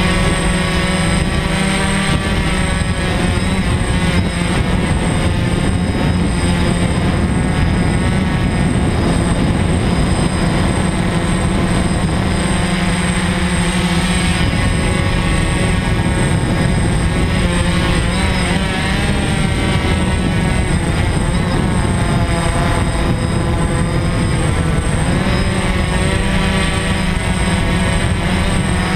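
DJI F550 hexacopter's six electric motors and propellers whining steadily in flight, heard up close from a camera mounted on its frame; the pitch wavers up and down as the throttle changes.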